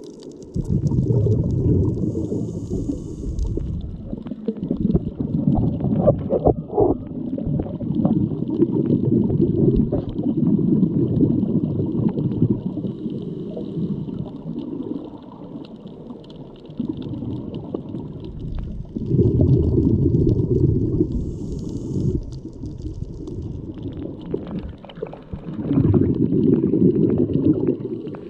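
Muffled underwater rumble of water moving around a GoPro camera housing while snorkeling, swelling and fading every few seconds, with faint scattered clicks.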